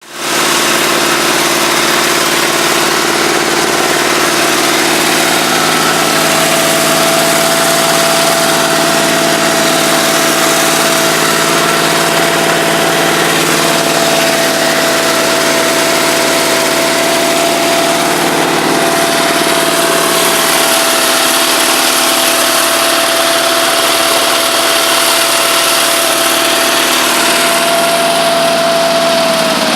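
Garden tractor engine idling steadily as it warms up, with a steady whine over the running.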